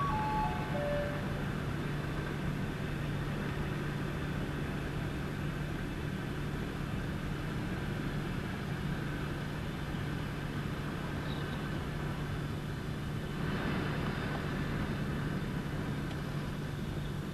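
Passenger train rolling slowly through the station: a steady low rumble with a constant hum, swelling briefly about two-thirds of the way through. Right at the start, a short falling chime of four notes.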